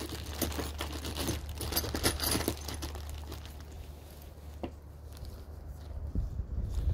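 A clear plastic parts bag crinkling and rustling as a gloved hand rummages in it for brake shoe springs and hardware, busiest in the first few seconds, with one light click about two-thirds through.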